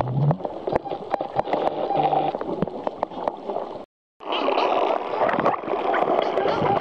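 Underwater sound picked up by a camera in the sea: many sharp clicks over a dense crackling wash of water noise, with a short low tone about two seconds in. The sound drops out completely for a moment just before four seconds, then returns as a denser crackle.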